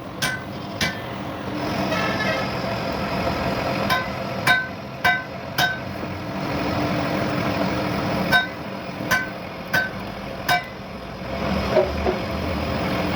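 Hammer blows on steel, each ringing briefly, in runs of two to four strikes about half a second apart, with a steady machine hum underneath.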